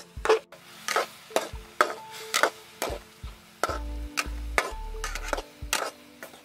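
Metal slotted spatula scraping and clinking against a wok as minced pork is stirred, in irregular strokes about one to two a second, over background music.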